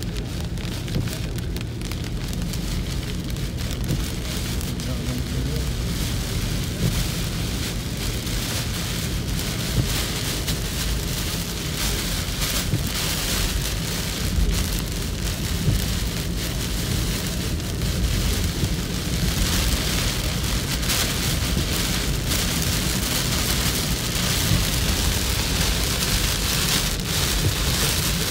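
Heavy rain hitting a moving car's roof and windshield, heard from inside the cabin over a low road rumble. The rain gets louder about two-thirds of the way through.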